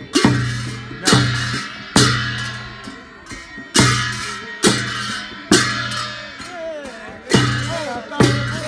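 Large brass hand cymbals clashed together with a deep drum beat, about one loud stroke a second, each ringing away before the next. Voices singing a wavering dance-song melody join in during the second half.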